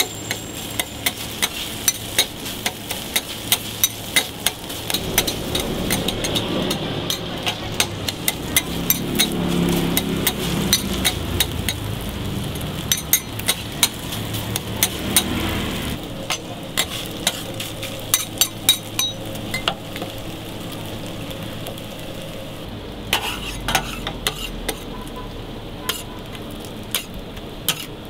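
Metal spatula and scraper clacking and scraping quickly on a steel flat-top griddle, chopping pieces of meat, over the steady sizzle of burger patties frying. The clacks and sizzle are busiest in the first half and thin out past the middle.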